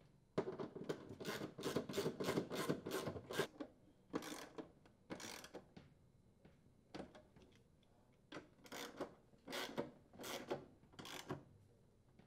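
Ratchet wrench rasping and clicking as the gear case mounting screws are tightened: a quick run of strokes in the first few seconds, then shorter runs with pauses between.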